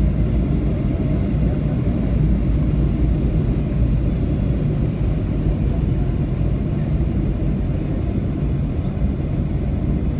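Boeing 757-200 cabin noise while taxiing: a steady low rumble of the engines at taxi power and the aircraft rolling on the taxiway, heard from a window seat over the wing.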